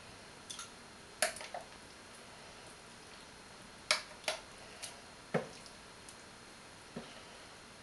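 A utensil scooping carrot stew out of the Thermomix TM31's steel mixing bowl: about eight short, scattered clicks and light knocks of metal against the bowl, unevenly spaced.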